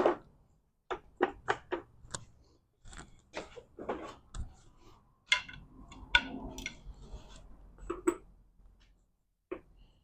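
Irregular metallic clicks and clinks of tools and parts being handled on a manual transmission, a few sharp knocks a second, with a short stretch of scraping clatter a little past the middle.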